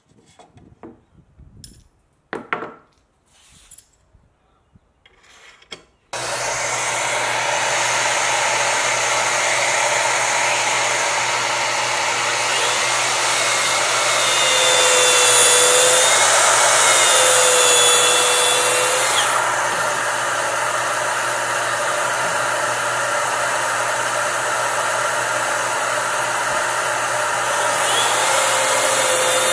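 A few clicks and knocks as the aluminium guide rail is set on the plywood sheet. About six seconds in, a Makita plunge track saw with a dust-extraction hose starts abruptly and runs steadily as it cuts the plywood along the rail, with a whine that shifts in pitch partway through the cut.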